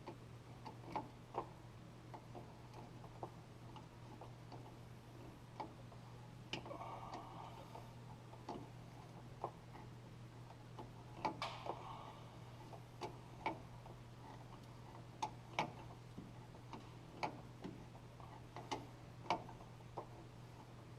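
Irregular metal clicks and taps of a wrench working hydraulic hose fittings, a couple of them with a short metallic ring, over a steady low hum.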